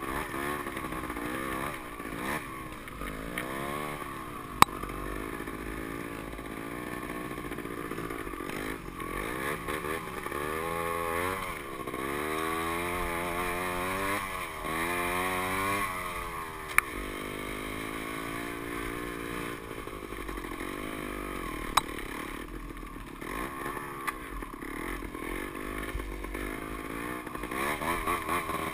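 Dirt bike engine on a trail ride, its pitch rising and falling as the throttle is opened and shut over and over. Three sharp knocks stand out.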